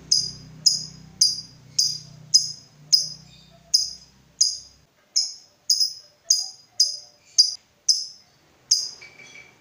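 Lovebird calling, a steady series of about fifteen sharp, high-pitched chirps, each about half a second apart.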